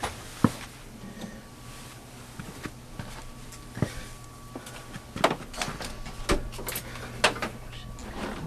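Scattered knocks, clunks and clicks of a plastic dehumidifier and its power cord being handled and moved into place, more of them in the second half, over a steady low hum.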